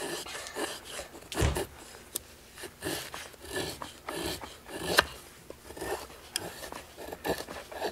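TOPS XcEST Alpha knife blade shaving a wooden stick into kindling curls, in irregular scraping strokes down the wood. There is a dull thump about one and a half seconds in and a sharp click about five seconds in.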